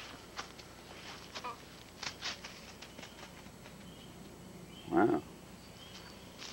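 Footsteps crunching in dry leaf litter, with one short, loud vocal call about five seconds in.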